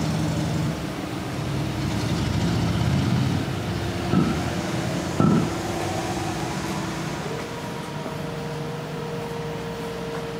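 A motor-vehicle engine running steadily with street traffic. Its pitch steps up to a higher steady tone about seven seconds in, and two short knocks come about four and five seconds in.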